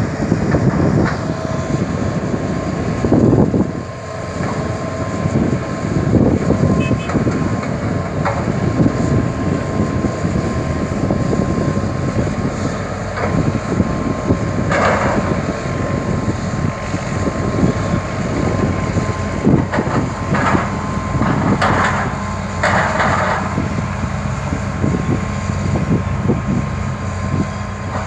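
Hitachi Zaxis 200 excavator's diesel engine running steadily under load with a faint steady whine, and a few short bursts of scraping or clattering about halfway through and again later, typical of the bucket working soil.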